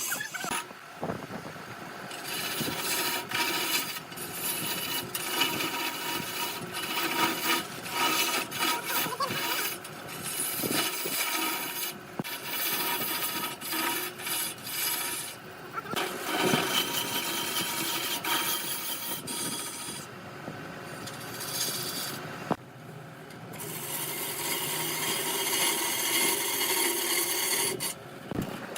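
A turning tool scraping and shaving wood on a spinning lathe, in uneven strokes with short pauses.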